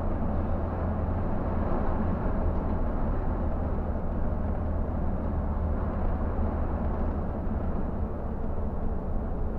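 Scania K124 coach's diesel engine running steadily with road and tyre noise, heard from inside the driver's cab as a constant low drone.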